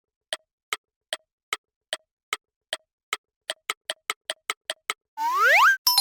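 Clock-ticking sound effect, about two and a half ticks a second, speeding up to about five a second, then a loud rising whistle-like glide near the end.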